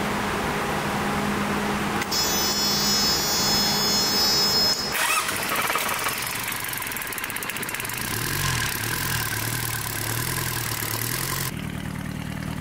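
Sabb M4 marine diesel engine being started after its injection pump rebuild. The starter cranks it for a few seconds, and it catches about five seconds in and keeps running. Its speed wavers at first, then settles to a steady idle near the end.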